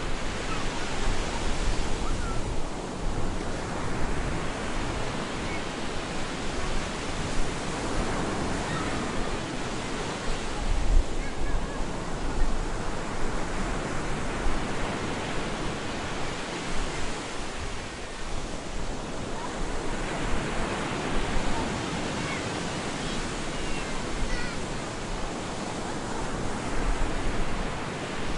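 Stormy sea surf: waves breaking on a beach in a continuous rushing wash that swells and eases every seven or eight seconds.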